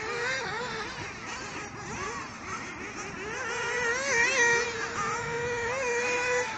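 Radio-controlled off-road buggies racing, their small motors whining with a pitch that swings up and down as the throttle changes, several at once, one held fairly steady near the end.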